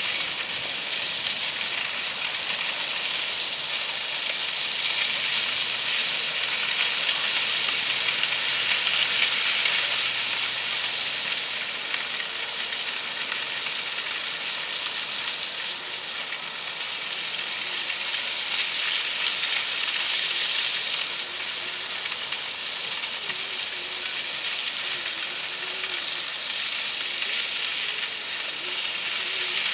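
Crushed-rock ballast pouring from a tipping ballast truck onto the railway track in a steady rushing hiss as the truck creeps along, with a faint low engine hum beneath.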